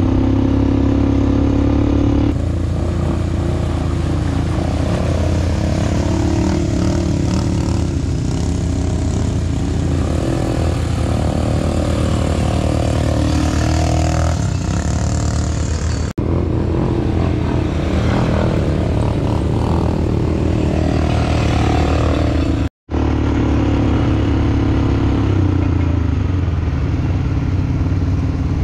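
ATV engine running steadily at riding speed. The sound changes abruptly about two seconds in and cuts out for an instant twice later on.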